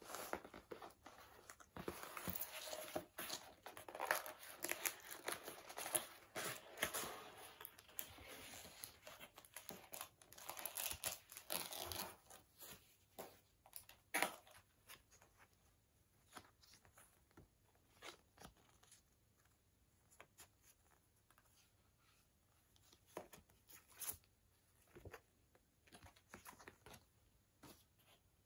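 Cardboard mailer box being torn open, with tearing and crinkling of its seal and wrapping for about the first twelve seconds. After that come only sparse light handling taps and rustles as the plastic-wrapped case inside is touched.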